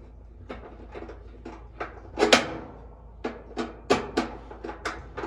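Irregular clicks and knocks of screws and tools being handled against a dryer's sheet-metal cabinet, about a dozen in all, the loudest about two seconds in.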